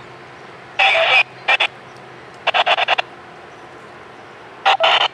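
Railroad scanner radio breaking squelch in short, abrupt bursts of static, one rapidly chopped, over a low steady hiss; near the end it opens into longer static.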